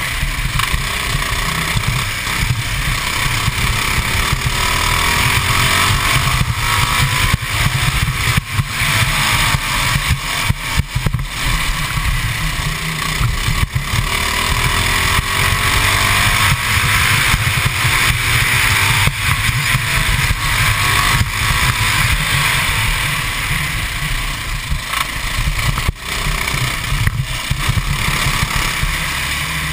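Modified 196cc Honda GX200-type single-cylinder four-stroke kart engine, tuned to about 24 hp, running hard on track. Its note rises and falls repeatedly as the kart accelerates out of corners and slows into them.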